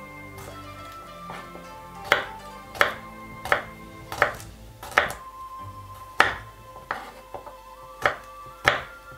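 A kitchen knife slicing peeled garlic cloves on a wooden cutting board: about nine sharp chops, roughly one every three quarters of a second, beginning about two seconds in. Background music plays underneath.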